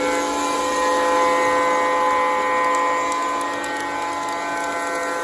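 O gauge model trains running on Fastrack O27 track: a steady rolling rumble of wheels and motors, with a hum of several steady tones over it that eases a little after about three seconds.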